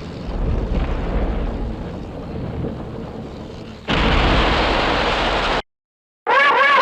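Kaiju film sound effect of a rumbling crash, like an explosion or heavy impact, fading over a few seconds, then a louder burst of rushing noise that cuts off abruptly. Near the end a Titanosaurus roar begins.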